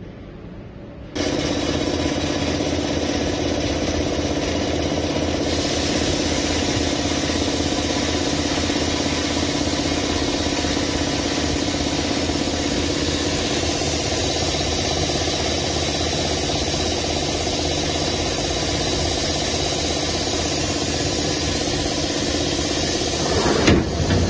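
Vertical wheel-hub cutting CNC lathe running steadily as it spins a car wheel under its cutting tool, a constant machine hum with a few fixed tones and a hiss. It starts suddenly about a second in, and a few knocks come near the end.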